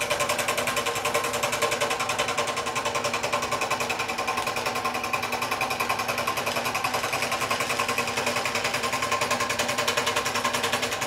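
Wen 16-inch scroll saw running at medium speed, its blade stroking rapidly up and down with a steady, fast chatter as it cuts through half-inch MDF.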